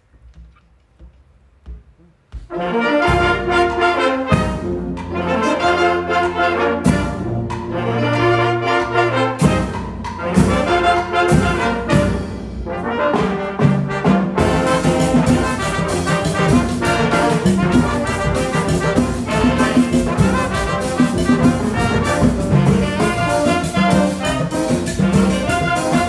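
Full wind band of brass, woodwinds and Latin percussion striking up a cumbión vallenato about two seconds in. The brass-led opening comes in short phrases with brief stops, and from about halfway through the cumbia groove settles in with steady percussion under the melody.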